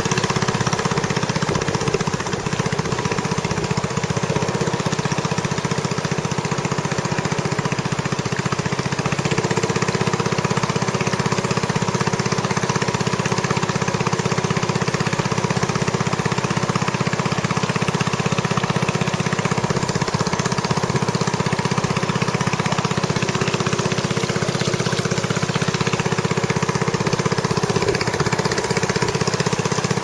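Boat engine running steadily, an even, continuous sound that holds the same pitch throughout.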